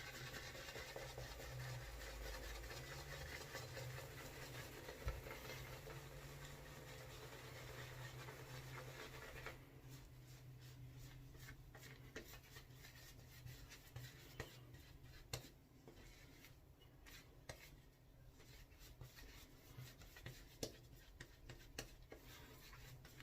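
Faint swishing and rubbing of a horsehair shaving brush working soap lather, which stops about ten seconds in, leaving a few faint scattered clicks.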